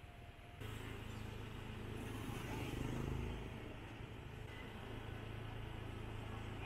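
Street traffic: a motor vehicle's engine running close by over a steady street din, suddenly louder a little after the start and loudest about two to three seconds in.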